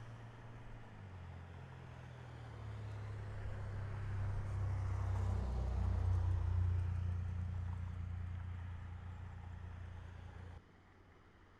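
A passing vehicle's engine: a low, steady hum that swells to a peak about six seconds in, fades, and cuts off abruptly near the end.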